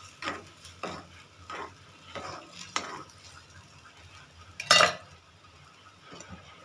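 A spatula stirring and scraping a thin, wet batter in a steel kadai, with a stroke every half second or so for about three seconds. Near five seconds in comes one loud, short metallic clatter against the pan.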